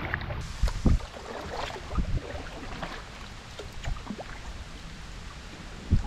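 Kayak paddle dipping and splashing in lake water, with a few dull thumps spaced through it, over a steady wash of water and wind.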